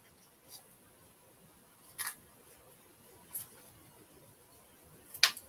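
Scissors cutting thin transfer paper: a handful of short, separate snips, the loudest about two seconds in and a quick pair near the end.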